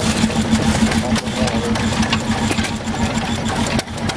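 Several antique stationary gas engines running together: a steady, rapid mechanical chugging and clatter.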